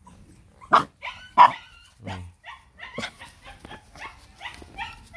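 Rottweiler puppies barking and yipping: two loud barks about a second in, then a run of short, high yips, about three a second.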